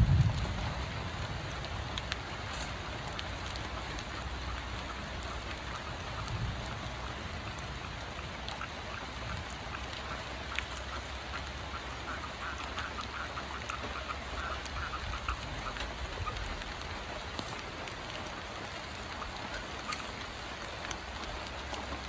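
Steady rain falling. A few seconds past the middle comes a quick run of short animal calls lasting a few seconds.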